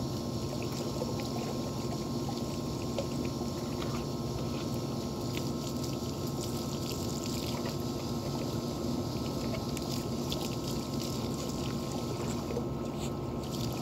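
Garden hose water running and splashing over a wet dog and into a plastic tub, steady throughout, over a low steady hum.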